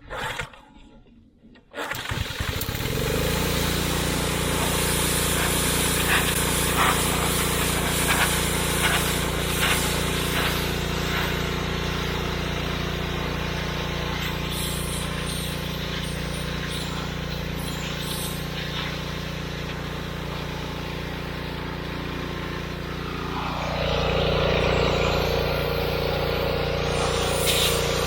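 Pressure washer running, a steady engine hum under the hiss of its water spray, starting abruptly about two seconds in. Near the end its note drops a little and gets louder.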